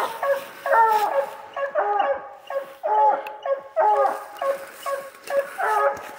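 Two Treeing Walker coonhounds barking over and over, about one drawn-out bark every second or less, their voices at times overlapping: hounds treed on a raccoon.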